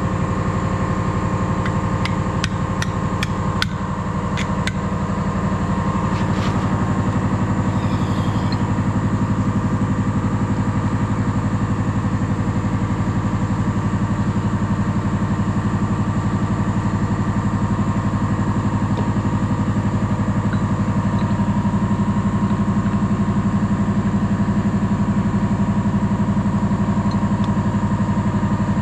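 Steady, loud machine hum with an even, unchanging pitch. Between about two and five seconds in comes a quick run of sharp clicks and taps, like hand tools on metal.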